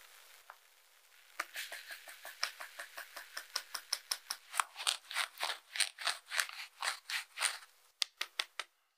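Stainless steel mesh sieve of flour tapped and shaken in a fast, even run of light taps, about five a second, sifting cake flour into a glass bowl. The tapping starts about a second and a half in, pauses briefly near the end, and finishes with a few more taps.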